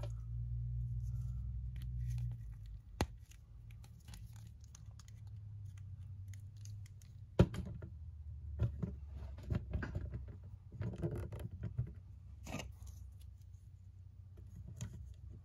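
Plastic action figure being handled as its hands are popped off and swapped on the wrist pegs: scattered small clicks and rustles, with a sharp click about three seconds in and another about seven seconds in. A low rumble from handling comes in the first two seconds.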